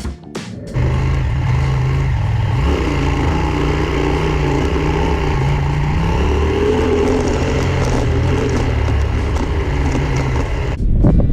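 Adventure motorcycle engine running steadily under way, with wind and road noise; the engine note shifts a little partway through.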